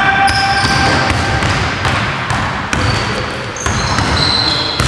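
A basketball bouncing on a hardwood gym floor, with sneakers squeaking in short high-pitched chirps several times as players move and cut.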